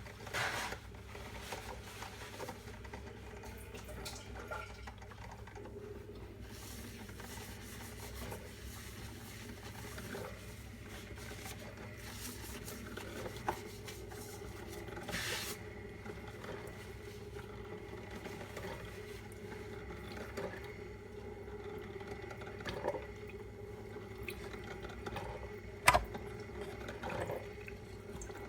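Small filter coffee maker brewing: water trickling and gurgling over a steady hum, with a few light knocks and one sharp click near the end.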